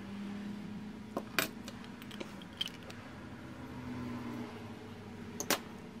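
A few sharp clicks and taps as a small plastic reel of solder wire is handled and unwound, the loudest about a second and a half in and near the end, over a steady low hum.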